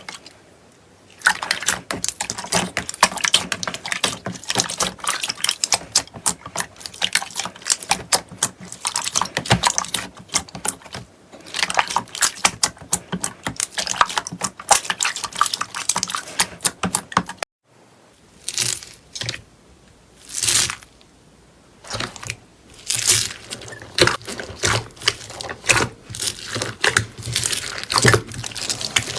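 Slime being squeezed and kneaded by hand, giving dense, rapid crackling and popping clicks. It cuts off suddenly about two-thirds of the way through, then resumes as sparser, separate pops and squelches.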